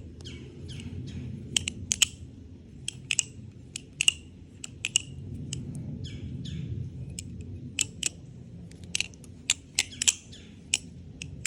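The One Falcon balisong being flipped: its handles and latch clack against each other and the blade in quick, irregular metallic clicks, some with a short bright ring.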